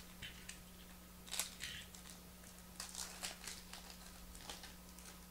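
A 2014 Panini Contenders football foil card pack being torn open at its crimped seam and its wrapper crinkled. The sound comes as a few short, faint rustling bursts, the loudest about a second and a half in and again around three seconds in.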